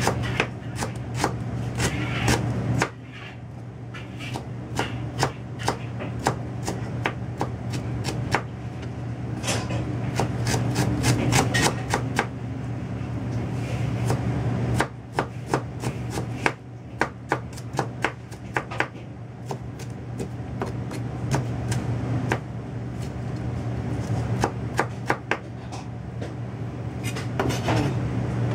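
Kitchen knife chopping vegetables, a run of quick, uneven strokes with short pauses, over a steady low hum.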